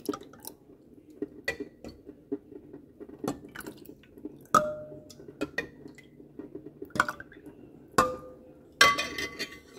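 Spoon stirring a drink in a drinking glass, clinking irregularly against the glass, with a few louder ringing clinks in the second half and a quick run of clinks near the end.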